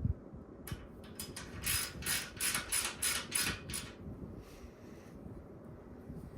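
A wrench working the 17 mm nut on a motorcycle rear shock's top mount: a run of about a dozen short metallic clicks, roughly three a second, stopping about four seconds in.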